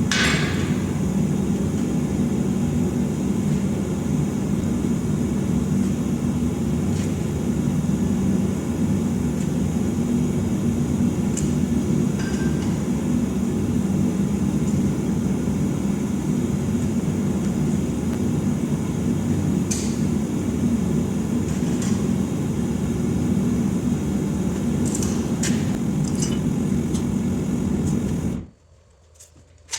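Swan Mini Mother gas forge burner running with a steady, low rushing noise, a few light metallic clicks over it. The sound cuts off suddenly near the end.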